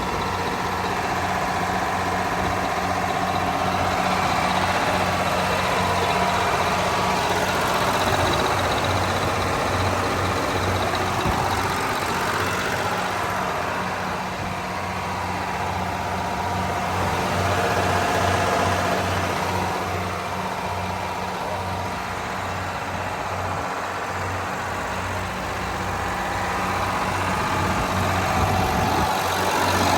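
Detroit Diesel 12V92 two-stroke V12 industrial diesel engine running steadily, with a constant low hum and some slow swells in loudness.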